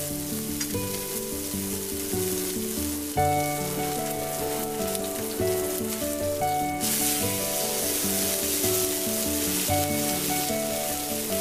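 Bone-in steak searing in hot olive oil in a cast iron pan: a steady crackling sizzle, growing louder about seven seconds in. Background music plays over it.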